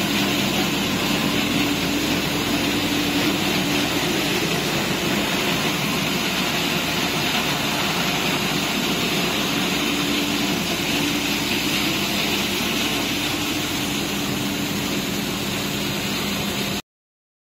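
Machinery of a PET bottle washing and recycling line running: a steady mechanical hum with a low drone, which cuts off suddenly near the end.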